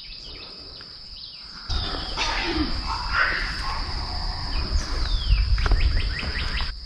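A steady high-pitched insect trill, with birds chirping and calling over it. From about two seconds in, a loud low rumble buffets the microphone and then cuts off abruptly near the end.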